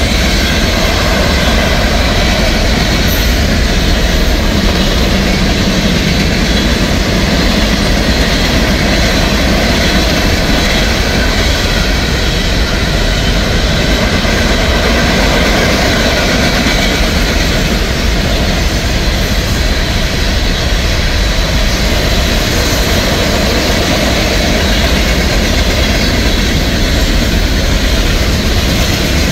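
CSX freight train's cars rolling past at speed: a loud, steady rush and rumble of steel wheels on rail.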